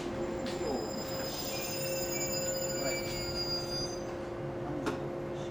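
JR 107-series electric train rolling slowly to a stop at the platform: a steady hum, with faint high brake squeal for a few seconds that dies away, and a couple of light clicks.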